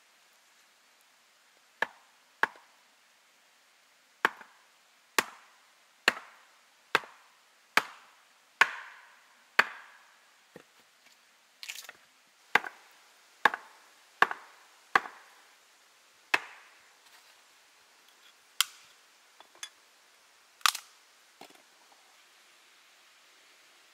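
Bushcraft knife being batoned through firewood on a chopping block to split kindling: about twenty sharp wooden knocks, roughly one a second, that stop a couple of seconds before the end.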